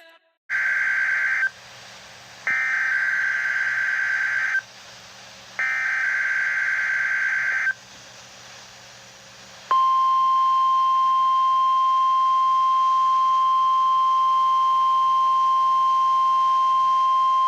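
NOAA Weather Radio Specific Area Message Encoding (SAME) alert header: three bursts of harsh digital data tones, about one to two seconds each with a second's gap between them. About ten seconds in, the steady 1050 Hz warning alarm tone begins; this tone switches on weather alert receivers for the required weekly test.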